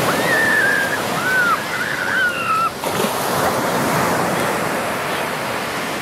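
Surf breaking and washing up a sandy beach: a steady rush of small waves.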